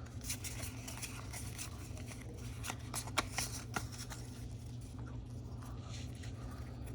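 Pokémon trading cards and a foil booster-pack wrapper being handled: scattered soft crinkles and clicks, busiest in the first four seconds or so, over a steady low hum.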